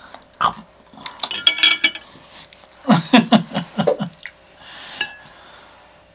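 Chopsticks clicking and clinking against plates and dishes at a meal. The clicks come in short quick runs, about a second in and again around three seconds in.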